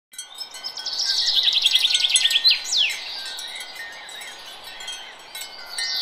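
Wind chime ringing with lingering tones, while a bird sings a fast trill ending in a falling whistle in the first half.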